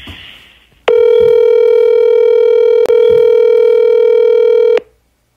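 Telephone dial tone: one steady, loud tone on the phone line, starting about a second in and cutting off sharply about four seconds later, with a brief click near the middle. It is heard while a third party is being dialled into a three-way call.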